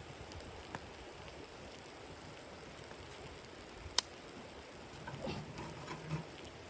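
Steady patter and hiss of blizzard snow on a tent, with one sharp crack about four seconds in and a few soft knocks and rustles near the end.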